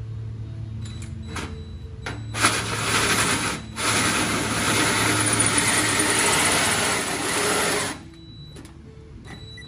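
Power drill cutting a hole through a car's fender panel: after a low hum with a few ticks, it bites in with a loud grinding cut about two seconds in, pauses briefly, then cuts steadily for about four more seconds and stops.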